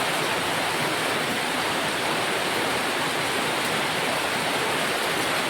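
Rain pouring down steadily, an even rushing hiss with no let-up.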